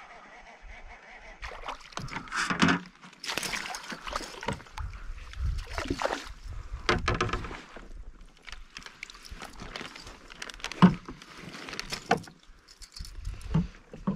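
Irregular splashes and knocks of water and gear around a kayak, coming every second or two, a few of them sharp.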